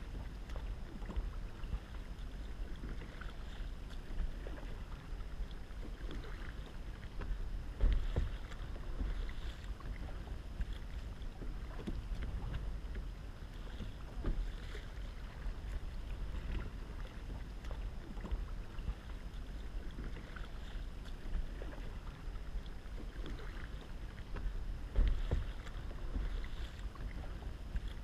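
Kayak paddle strokes dipping and splashing in calm water, with water lapping at the hull over a steady low wind rumble on the microphone. Two louder low thumps stand out, about eight seconds in and near the end.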